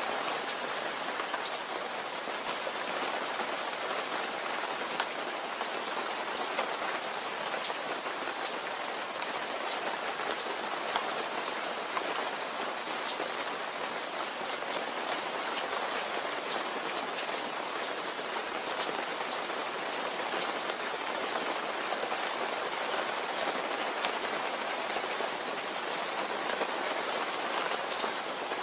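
Steady rain falling, with the ticks of individual drops striking a surface all through.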